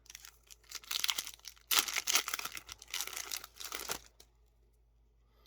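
Foil wrapper of a Yu-Gi-Oh booster pack being torn open and crinkled in a run of bursts; it stops about four seconds in.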